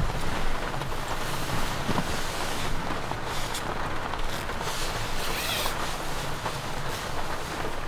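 Heavy rain falling: a steady hiss with many small drop ticks scattered through it.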